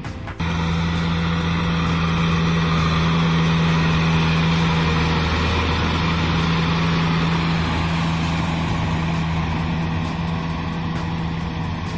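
Kubota M6040SU tractor's diesel engine running steadily under load as it drags a rotary tiller through flooded paddy mud. It cuts in abruptly just after the start, grows a little louder over the next few seconds, then eases slightly.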